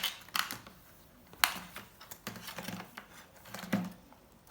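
A few sharp small clicks and light scraping from hands handling a laptop's underside at the RAM slot, with a softer knock near the end.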